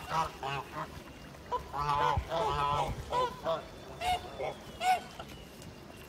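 Flock of domestic geese honking on the water: several birds call over one another about two seconds in, then single honks follow every half second or so.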